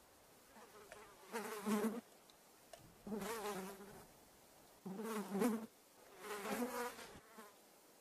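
A flying insect buzzing close by, coming and going in four passes of about a second each, its pitch wavering, over faint background hiss.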